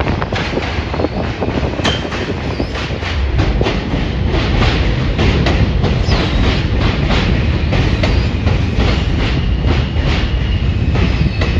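R160 subway train rolling into an elevated station, its wheels clattering rapidly and steadily over the rail joints, with a faint high wheel squeal now and then.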